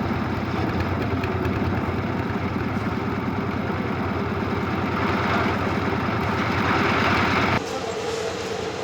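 Concrete mixer's engine running steadily with an even, rapid beat, a hiss building over it in the last few seconds. The sound cuts off abruptly about seven and a half seconds in, leaving a quieter, different engine-like background.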